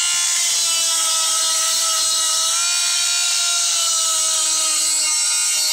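Small handheld electric chainsaw sharpener running with its grinding stone against the saw chain's cutters. It gives a steady high whine over a grinding hiss, and the pitch shifts slightly about halfway through.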